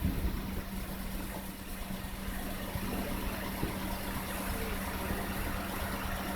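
The rumble of a firework burst dying away over the first second or so, leaving a steady low hum.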